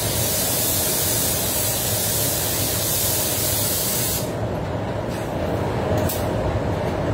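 Compressed-air paint spray gun hissing steadily as it sprays a wet bed coat onto a car bumper, then cutting off about four seconds in. The steady low rumble of the paint booth's air handling runs on underneath.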